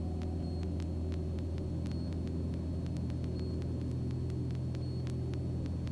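Super Decathlon's four-cylinder Lycoming engine and propeller in flight, a steady low drone with faint ticking over it.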